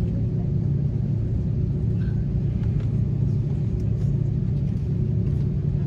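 Steady low hum inside an Airbus A330-300 cabin on the ground, with a few faint ticks.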